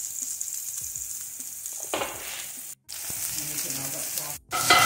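Asparagus spears sizzling in a hot cast-iron grill pan, a steady frying hiss. It cuts out briefly twice and is louder near the end.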